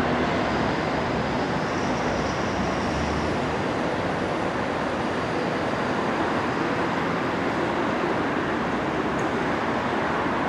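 Tyne and Wear Metrocar running through the station: a steady rumble with faint high whines drifting over it.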